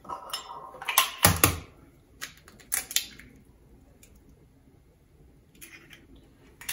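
Eggs being cracked against the rim of a bowl: several sharp knocks and clinks of shell on the bowl in the first three seconds, the loudest about a second and a half in, then a quiet stretch with a few light taps near the end.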